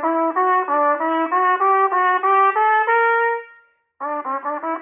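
Trumpet playing an etude passage of short, separate notes that climb in pitch and end on a held note about three and a half seconds in. After a short pause the same passage starts again at a quicker tempo: practising it slowly, then speeding it up.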